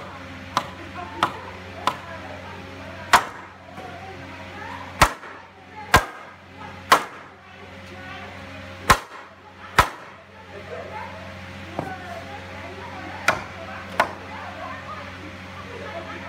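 Hammer blows on a wooden door frame, knocking its joints tight: about a dozen sharp knocks at uneven intervals, the loudest in the middle stretch. A steady low hum runs behind them.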